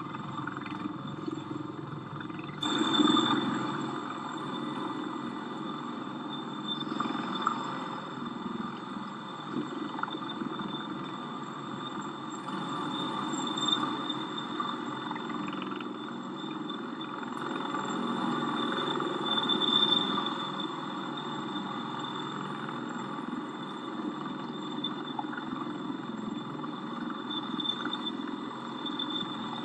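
Bell V-280 Valor tiltrotor hovering and maneuvering at low speed: its proprotors and turbine engines make a steady drone with a thin high whine, swelling louder about three seconds in and again around twenty seconds.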